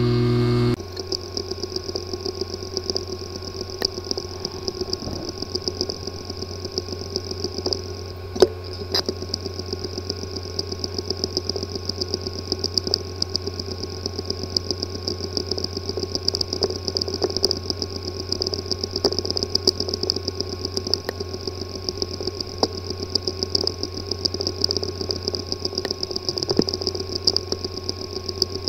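A physically damaged hard drive running, starting under a second in: a steady hum and high whine with rapid, irregular ticking and clicking throughout and one sharper click about eight seconds in. Clicking like this is typical of a damaged disk assembly, and such a drive is not accessible.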